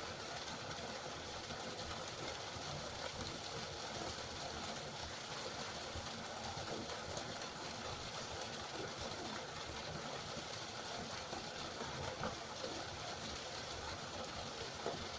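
River water flowing, a steady rush with a few faint small splashes.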